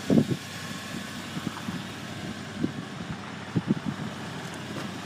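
Steady background hum with a few short, soft low thumps scattered through it.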